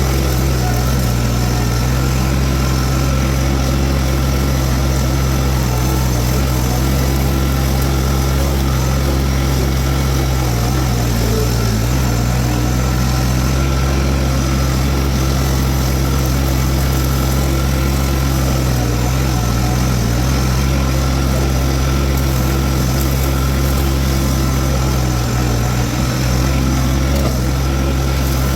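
Toro TX1000 mini skid steer's diesel engine running steadily while driving a Virnig V20 brush mower. The engine note sags briefly twice, about a third and two thirds of the way through.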